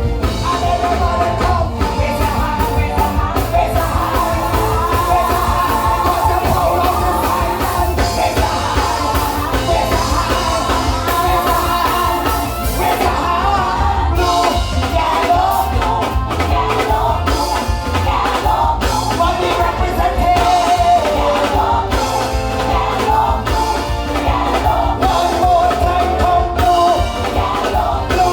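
Live soca band music played loud through a stage PA, with a heavy, pulsing bass and a singer's voice over the band.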